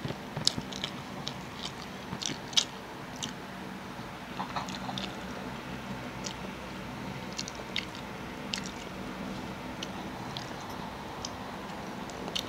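A person chewing food close to the microphone, with scattered short wet smacks and clicks, more of them in the first few seconds and sparser after. A steady low hum runs underneath.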